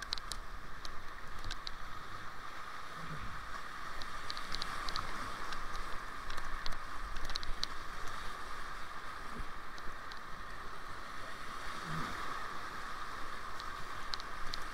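Whitewater rapids rushing steadily around a kayak running a rocky creek, with scattered small splashes and ticks of water.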